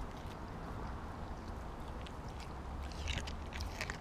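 Siberian husky chewing and mouthing a whole raw mackerel: scattered wet clicks and crunches, most of them near the end, over a low steady rumble.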